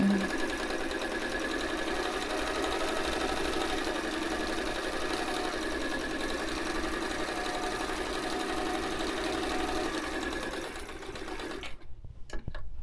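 White 173 sewing machine running at a steady speed as it stitches fabric strips together. It stops abruptly about a second before the end, and a few light clicks follow.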